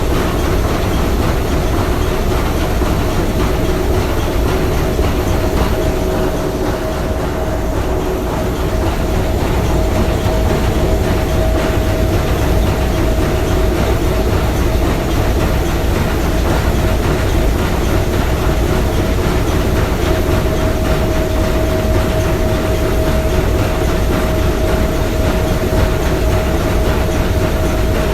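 Three-cylinder triple-expansion marine steam engine running steadily: a dense, even mechanical noise with a steady whine running through it.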